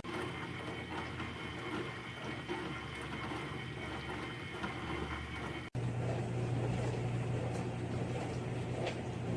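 HAVA 2025 countertop dishwasher running, its water spraying inside with the pump going. After a brief break about halfway through, a steady low hum from the pump motor comes in.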